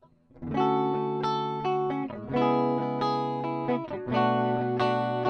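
Fender Blacktop Jaguar HH electric guitar played with a clean tone through both humbuckers together. After a brief gap at the start, chords ring out and change every half second to a second.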